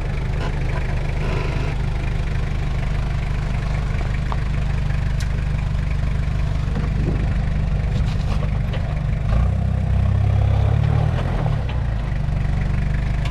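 Toyota 4Runner's 1KZ four-cylinder turbo-diesel, converted to mechanical injection, running at low revs as the 4WD crawls over rocks. It gets louder for a couple of seconds near the end as the driver gives it more throttle.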